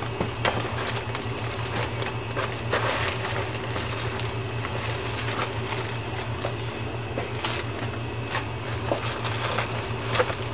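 Steady low hum of a running home furnace filling an empty room, with a few faint knocks scattered through it.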